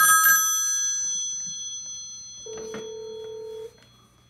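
Old telephone's electromechanical ringer striking its two brass gongs: a burst of ringing stops about half a second in and the bells ring out, with a short steady tone about three seconds in. The ringer is now wired across the line instead of for grounded ringing, so it rings a whole lot louder on a modern low-voltage line.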